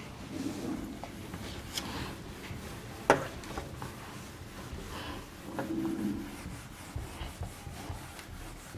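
Whiteboard eraser rubbing across the board, wiping off marker writing in strokes, with a couple of sharp knocks, the louder about three seconds in.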